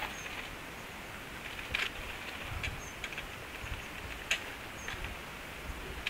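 Steady faint hiss of outdoor air with a few soft, short ticks scattered through it, and three very brief, thin high chirps from a small bird.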